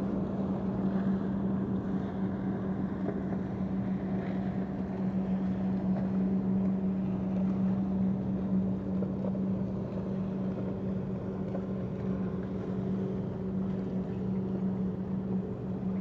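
Steady engine drone holding one low pitch, over a dull background rumble.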